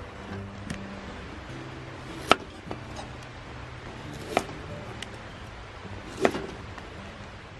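Kitchen knife chopping food on a wooden cutting board: three sharp knocks about two seconds apart, with a few lighter taps between, over soft background music.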